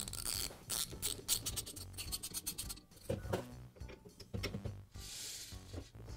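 Hand ratchet clicking in quick runs while driving the drill chuck's retaining screw home, with a few scattered metal clicks and a brief scrape later on.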